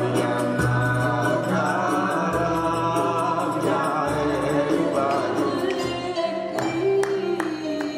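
Traditional folk song sung by several voices together over a steady hand-percussion beat and low sustained bass notes.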